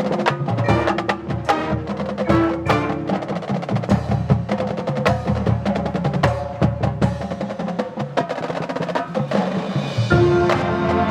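Band music heavy on percussion: many quick drum and wood-block-like strikes and mallet-keyboard notes over held pitched notes.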